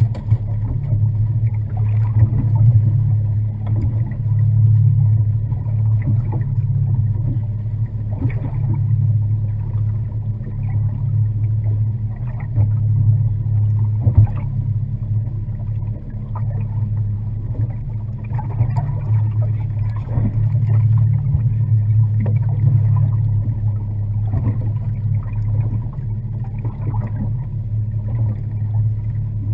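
Boat motor running steadily at an unchanging low pitch, with scattered light knocks.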